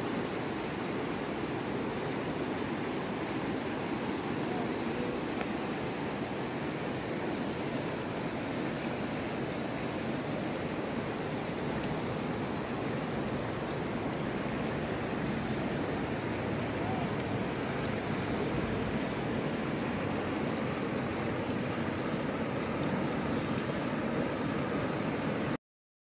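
Jaldhaka river rushing and churning over rocks in shallow rapids, a steady rush of water that cuts off suddenly near the end.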